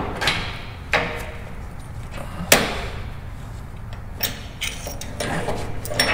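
Steel wire lift cable being worked around a sheave on a four-post car lift's steel runway: a series of sharp metallic knocks and clunks, the loudest about two and a half seconds in.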